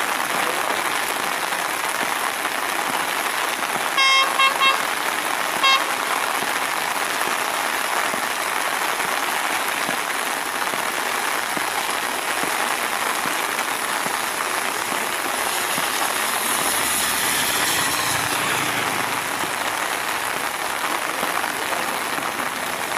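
Heavy rain falling steadily, with the air horn of a Sri Lanka Railways Class S14A diesel multiple unit giving short toots about four seconds in and one more a little over a second later. The train's running noise swells briefly near the end.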